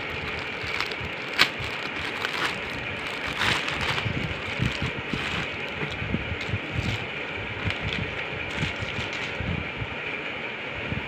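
Thin clear plastic packaging crinkling and rustling as a folded shirt is unwrapped and handled, with irregular sharp crackles, the loudest about a second and a half in, over a steady background hiss.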